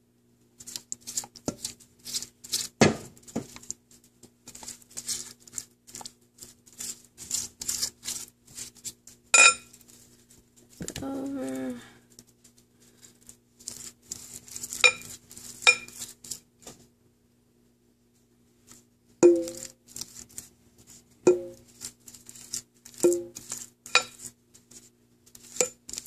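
A basting brush dabbing and spreading sauce over raw pork ribs in a crock pot: a run of quick wet pats and scrapes, with several ringing clinks against the crock. A faint steady hum lies under it.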